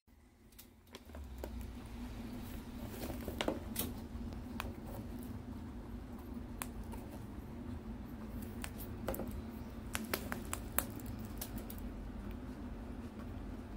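Guinea pig biting and chewing a dried kabocha squash slice: a dozen or so small, irregular crunches over a steady low hum.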